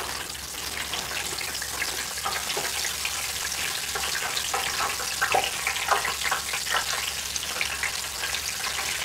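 Crinkle-cut French fries poured from a bag into a wire deep-fryer basket, many small clatters against the mesh over a steady hiss from the fryer's hot oil. The clatters are thickest in the middle of the pour.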